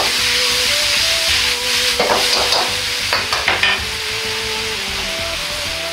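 Udon noodles sizzling in a hot wok, with a metal ladle scraping and knocking against the wok in quick strokes as they are stir-fried, up to about four seconds in; after that the sizzle goes on more quietly.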